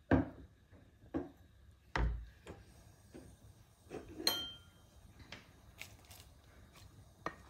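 Wooden spatula knocking and rubbing against a nonstick pan while stirring soup, a handful of separate knocks about a second apart. One heavier thump about two seconds in, and a brief ringing clink about four seconds in.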